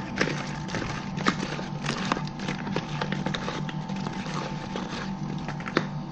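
Two wooden spatulas tossing fried chicken in thick red seasoning sauce in a plastic bowl, clicking and knocking irregularly against the bowl and each other, over a steady background hum.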